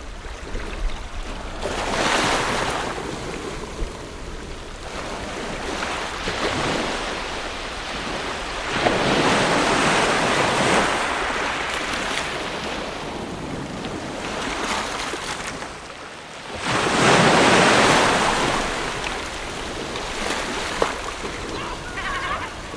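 Ocean waves breaking on a shore, swelling and washing back in slow surges; the loudest wave breaks about seventeen seconds in.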